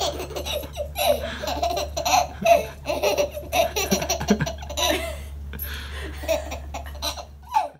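A baby laughing hard in quick repeated bursts, one after another.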